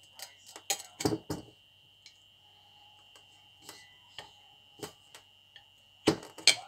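Camping knife blade twisting and levering in a wine bottle's cork, giving scattered sharp clicks and knocks of steel against cork and the glass neck, with a louder cluster about a second in and another near the end.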